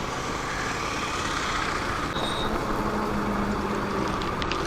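Steady wind and road noise of a motorcycle riding along a highway, with the engine running underneath at an even speed.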